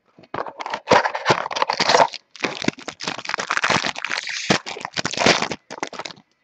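Packaging crinkling and crackling as a trading-card mini box is unwrapped and torn open, in rapid irregular rustles that stop just before the end.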